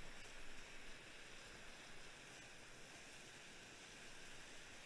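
Faint, steady rushing of whitewater rapids around a kayak running down a concrete whitewater channel.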